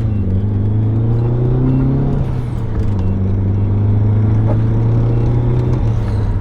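Turbocharged BMW E36 318's engine pulling under way, its pitch rising for about two seconds, then dropping as if on a gear change, then running steadily at an even pitch.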